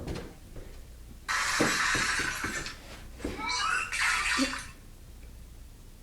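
Electronic sound effects from a toy basketball game: a hissing burst lasting about a second and a half, with a few soft thumps under it, then a shorter burst with falling chirps over the hiss.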